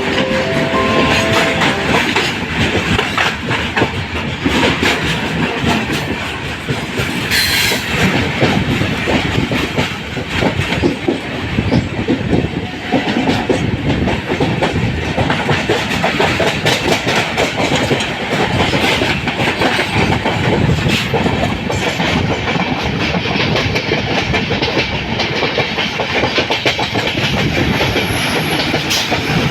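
Train passing close by: a steady rumble with the rapid clickety-clack of its wheels over rail joints. There is one sharper, louder bang about seven seconds in.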